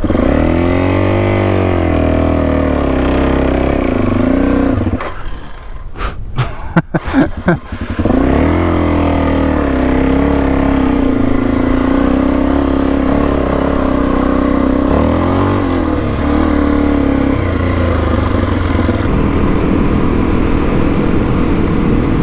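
Suzuki DR-Z400E dirt bike's single-cylinder engine revving up and down while riding through boggy sand. About five seconds in, the engine sound drops away for a few seconds under a run of sharp knocks and clatter; then it revs up again and settles to a steadier pitch.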